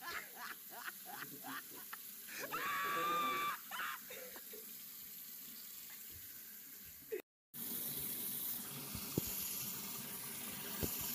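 Voices and a held high-pitched cry in the first few seconds, then, after a brief dropout, a bathroom sink tap running steadily.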